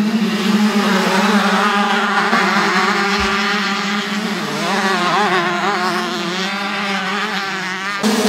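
A pack of motocross bikes revving their engines together as they pull away from the start gate, several engine notes rising and falling over one another.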